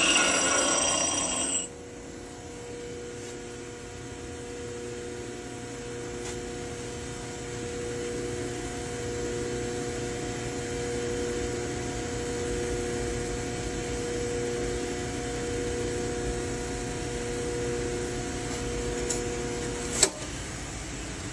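Twist drill bit ground against a pedestal bench grinder's wheel, a loud harsh grinding that stops about two seconds in. The grinder then spins freely with a steady hum and whine, and a sharp click sounds near the end.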